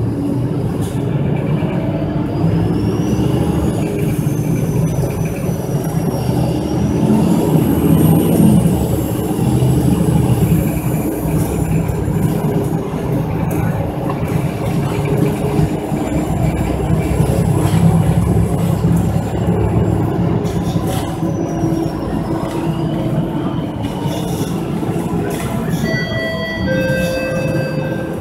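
City bus heard from inside the cabin while under way: a steady engine and road drone with rumble and rattles, and a thin high whine that rises and falls in pitch. A short run of electronic tones near the end.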